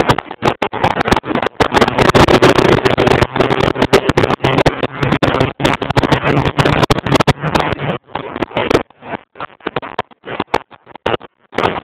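Heavy wind buffeting on a phone microphone while an Audi A4 is driven, with the car's engine faintly underneath. The sound keeps cutting in and out, more often in the last few seconds.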